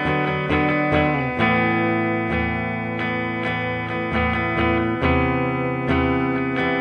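Instrumental music of plucked guitar notes, with a new note or chord struck about every half second.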